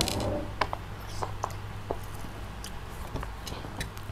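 Quiet eating sounds: scattered small clicks and smacks of children chewing fried chicken and picking at it on a plastic plate.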